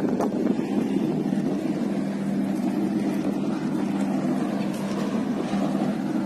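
Ship's engine running with a steady low drone that holds one pitch throughout.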